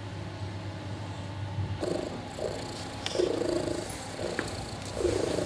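Mother cat purring while nursing. The purr comes in loud pulses of about half a second to a second each, starting about two seconds in, over a low steady hum.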